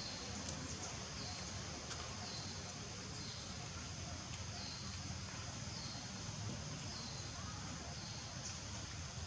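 Outdoor ambience: a steady high buzz of insects that swells and drops roughly once a second, over a low rumble.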